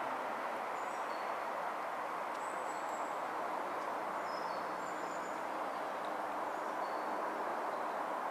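Steady hiss of road traffic, with small birds calling in short, high whistled notes every second or so.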